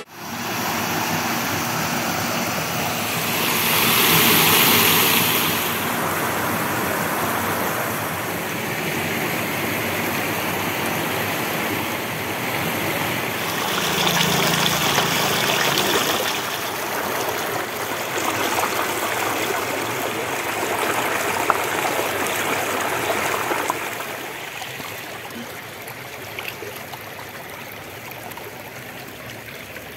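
Shallow stream running over rocks: a steady rush of water that swells twice and grows quieter over the last few seconds.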